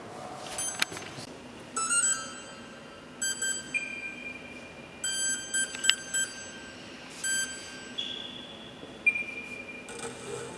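Series of electronic beeps from the RC blimp's radio control gear while its channels are being set up: short clusters of beeps and a few longer single tones of about a second, at several pitches.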